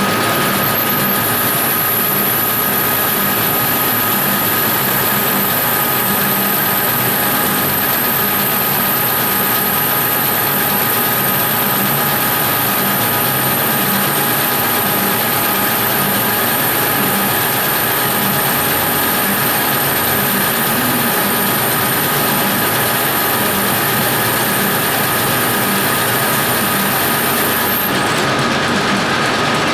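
Metal lathe running steadily under power while its tool bit turns down an aluminium bar. The motor and gear drive make a continuous hum, and a thin high whine starts about a second in and stops shortly before the end.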